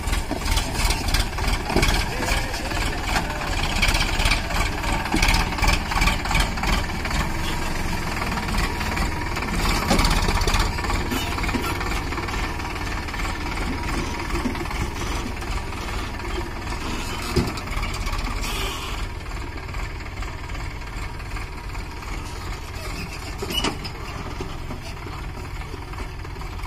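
Sonalika DI 47 RX tractor's three-cylinder diesel engine running as it hauls a trolley loaded with soil. The engine note pulses unevenly for the first ten seconds or so, then settles into a steadier, slightly quieter run.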